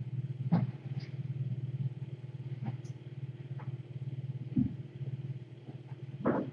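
A cat purring steadily close to the microphone, a low rapid rumble, with a few light knocks and a brief scuffling noise near the end.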